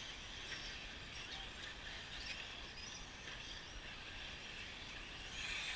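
Electric RC truggies running on a dirt track: a faint, steady wash of high motor whine and tyre noise, with a few brief rising and falling whines.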